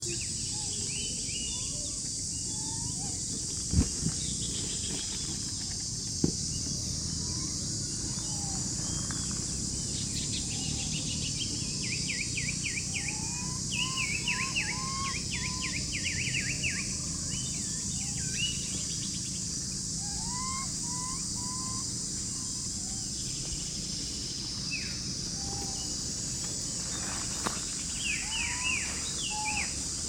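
Outdoor natural ambience: a steady high insect drone with a low rumble underneath, and many short rising chirping calls, coming in quick runs in the middle and near the end. Two sharp knocks stand out, about four and six seconds in.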